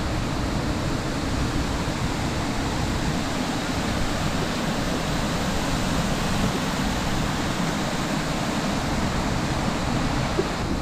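Steady rush of a fast-flowing stream tumbling over rocks.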